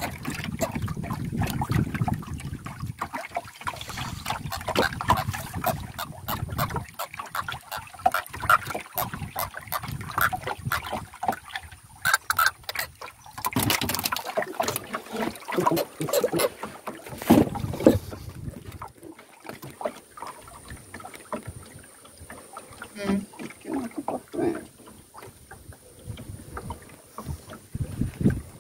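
Irregular knocks, clicks and rustling of fishing line and gear being handled against the boards of a wooden canoe.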